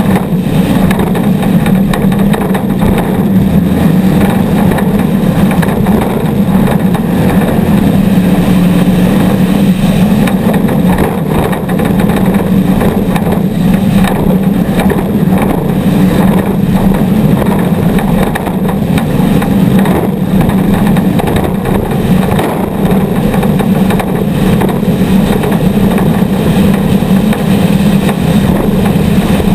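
Off-road race vehicle engines running loud and steady.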